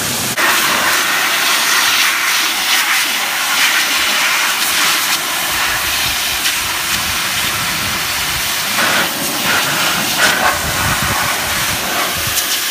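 Pressure washer jet spraying a car wheel rim, a loud steady hiss of water blasting the rubbery Plasti Dip coating off the wheel.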